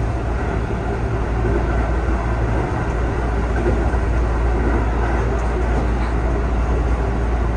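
Keihan 3000 series electric train running, a steady rumble of wheels on rail heard from the driver's cab.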